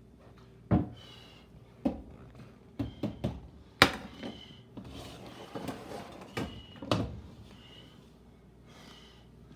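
Kitchen clatter: plates being taken out and set down, with cupboard or drawer knocks. About seven sharp knocks and clinks, the loudest a little under four seconds in, some with a short ring after them.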